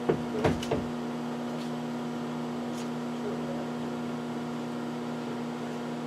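Microwave oven running: a steady electrical hum from its transformer, with a few short clicks in the first second, while a handheld vacuum cleaner burns inside it.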